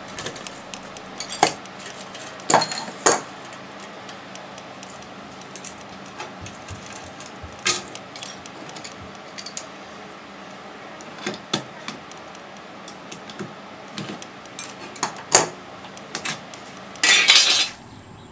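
Pieces of scrap metal from a dismantled window air conditioner (steel end plates with copper and aluminium bits) clinking and knocking irregularly as they are worked and handled, with a longer clatter near the end.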